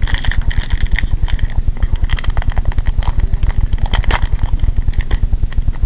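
Foil booster-pack wrapper being handled and torn open, with scattered short crinkles and crackles, over a steady low throb pulsing about ten times a second.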